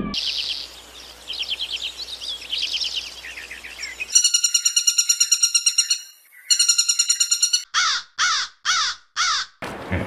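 Lineated woodpecker calling: two fast runs of high, even-pitched notes at about a dozen a second, then five harsh calls that each sweep downward. Softer chirping trills come before them.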